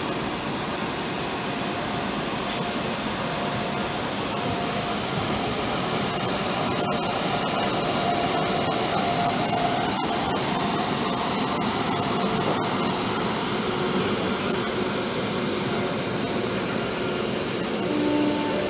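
Steady running noise of a moving electric local train heard from on board, the rumble of wheels on rails and rushing air, growing slightly louder through the middle.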